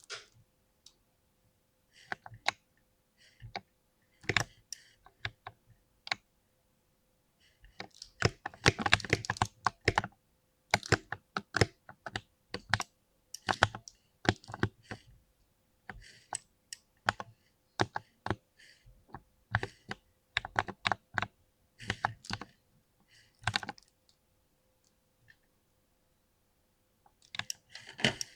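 Keys of a lubed mechanical keyboard being pressed in uneven rhythmic runs of clacks, densest about a third of the way in, with a pause near the end. A faint steady hum sits underneath.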